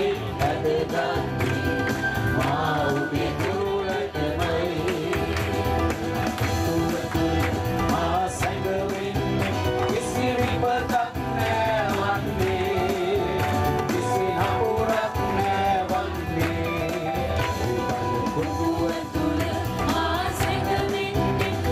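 Live worship song: voices singing into microphones over electronic keyboard accompaniment, with a steady bass line.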